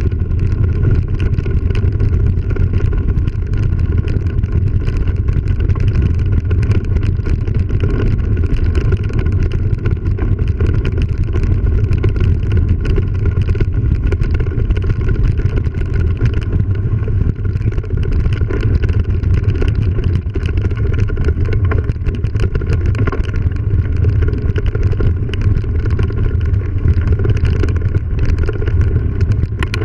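Steady deep rumble of wind buffeting and tyre noise on a mountain bike's action camera riding a bumpy grassy dirt trail, with many small rattles and knocks from the bumps.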